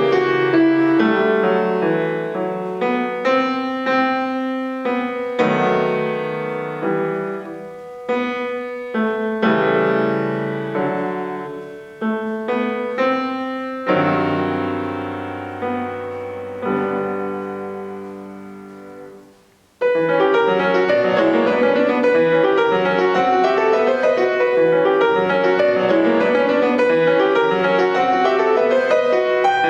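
Solo piano playing classical music: slow chords that ring and die away, fading almost to silence about twenty seconds in, then a fast, busy passage starting suddenly.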